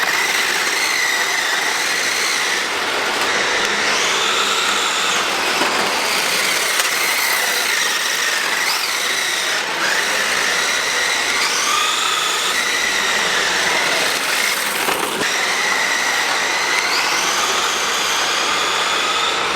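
Electric motor whine of a toy-grade 1:10 scale 4WD RC drift car driven flat out down a straight. The pitch rises three times as the car speeds up, over a steady hiss.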